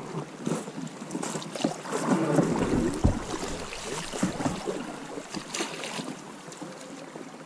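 Water splashing and lapping around a small boat on a river, with irregular knocks and scrapes against the hull.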